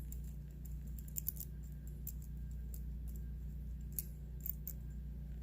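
Scattered light clicks and ticks of small metal hardware being handled as a pre-assembled bolt, washers and nut are taken apart by hand, over a steady low hum.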